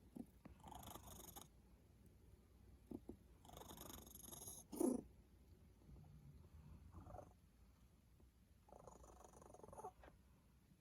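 Faint, congested breathing of a cat with cat flu: about four slow, wheezy breaths a few seconds apart, with a short sharper sound about halfway through. The breathing is that of a cat recovering, much improved from the worst of the illness.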